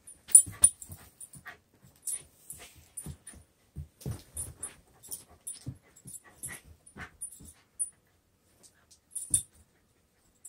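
A small dog playing rough with a toy on carpet: an irregular run of soft thumps and scuffles, with short high-pitched squeaks, and one louder knock about nine seconds in.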